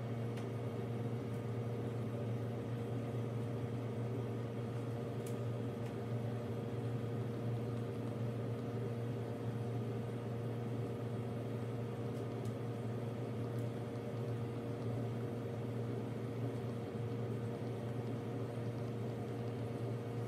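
A steady low hum, like a running appliance or ventilation unit, holding unchanged throughout, with a few faint ticks of a stylus tip on a tablet screen.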